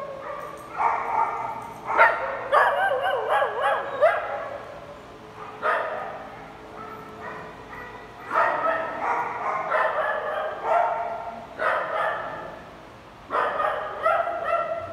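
Several small dogs barking and yapping in repeated bursts every second or two as they play, some calls drawn out with a wavering, whining pitch.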